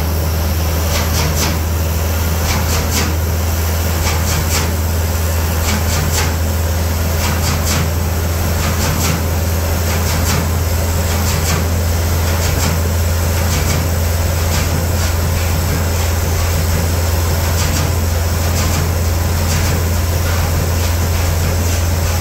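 Fairbanks Morse 32E six-cylinder two-stroke diesel, a big slow-speed stationary engine, running steadily as a deep, even drone. Sharp clicks come through it at uneven intervals, mostly in the first half.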